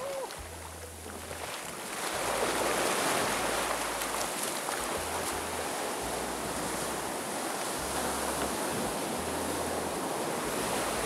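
Shore-break surf breaking and foaming wash rushing around a kayak as it comes in to the beach; the rush grows louder about two seconds in and then holds steady.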